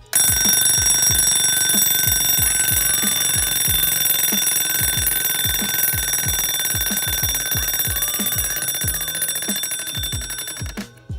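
Alarm of a vintage Soviet SLAVA mechanical alarm clock ringing loudly and continuously. It starts abruptly and cuts off suddenly about ten and a half seconds in: the alarm works.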